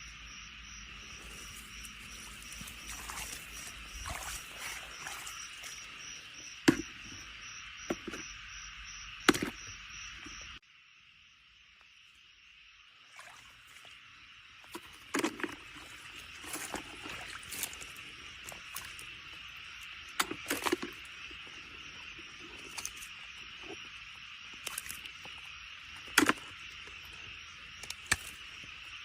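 Steady insect chorus of crickets in a field, with about six sharp knocks or handling clicks over it. The chorus cuts out abruptly about ten seconds in and comes back a couple of seconds later.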